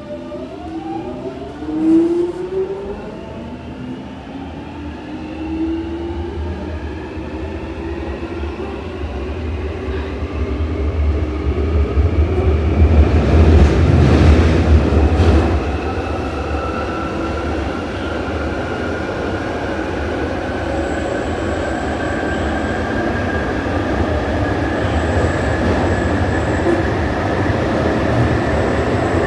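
Inside a London Underground 1996 Tube Stock carriage, the train accelerating: the whine of its traction motors rises steadily in pitch over the rumble of the wheels on the rails, and the rumble is loudest about halfway through.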